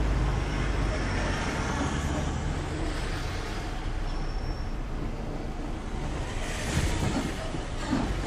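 Mercedes Sprinter camper van's engine and tyres, a steady low rumble heard from inside the cab as it drives onto a chain ferry's steel car deck, with a couple of bumps near the end.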